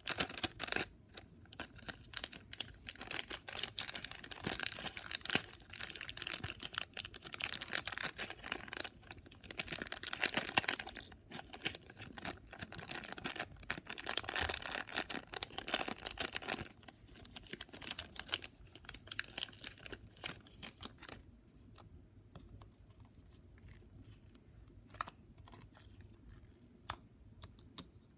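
Slime being squished and worked by hand, making dense crackling, popping clicks. The clicking thins out about two-thirds of the way in and gives way to a few scattered clicks near the end.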